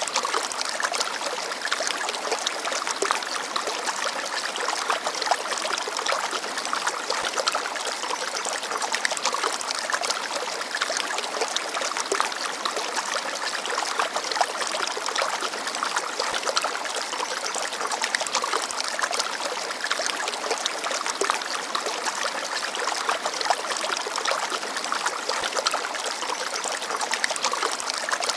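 Shallow forest stream babbling and trickling over stones, a steady splashing rush with constant small gurgles.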